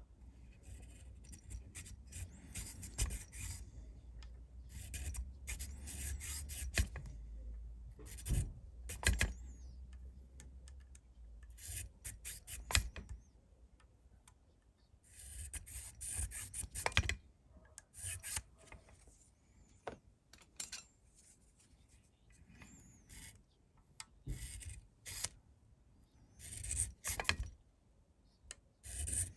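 Nut slot files rasping back and forth in the string slots of a new guitar nut, in short bursts of quick strokes with pauses between. The slots are being widened with progressively wider files.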